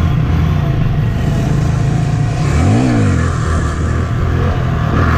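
Honda Grom's small single-cylinder engine running steadily under way, with a quick rise and fall in revs a little past the middle.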